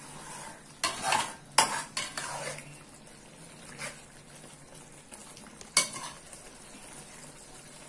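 A slotted metal spatula stirring chicken korma in a metal pot, scraping and clinking against the pot in uneven strokes. The strokes are loudest about a second and a half in and again near six seconds, over a faint sizzle of the gravy cooking on low flame.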